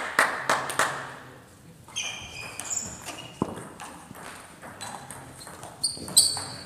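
Table tennis rally: the celluloid ball clicking off rubber paddles and bouncing on the table, strokes coming irregularly, under a second apart at times. Short high squeaks of sports shoes on the hall floor come a couple of seconds in and again near the end, the loudest click falling with the last of them.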